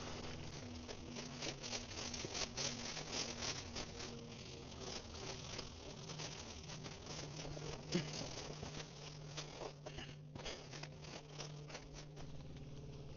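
Dry grass and brush crunching and rustling underfoot and against clothing as a hunter walks through cover: a dense run of small crackles, with one sharper snap about eight seconds in.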